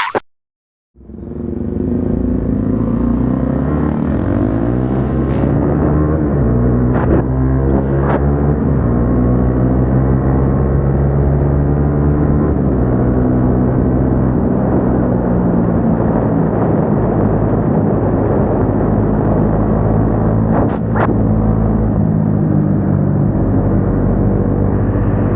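Single-cylinder motorcycle engine with an aftermarket exhaust, cruising at steady revs that rise and fall gently, after about a second of silence.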